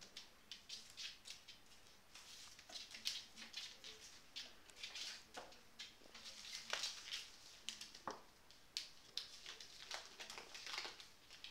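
Burmese kittens playing on a tiled floor: faint, irregular scuffles, taps and rustles from paws skittering on the tiles and a ribbon being batted and dragged.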